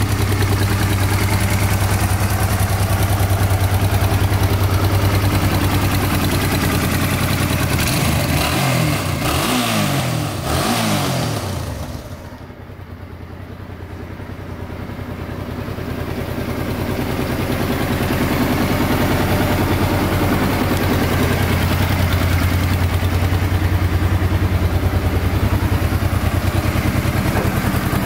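Honda NT700V Deauville's 680 cc V-twin engine idling steadily. Its pitch rises and falls a few times about eight to eleven seconds in, then the sound is quieter for a few seconds before it returns to the steady idle.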